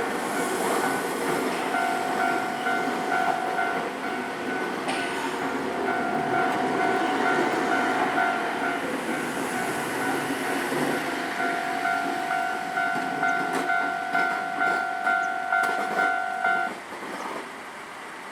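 Japanese level-crossing alarm ringing rapidly in two steady tones over the noise of a Nankai Kōya Line train passing over the crossing. The alarm cuts off about 17 seconds in, leaving fainter train noise.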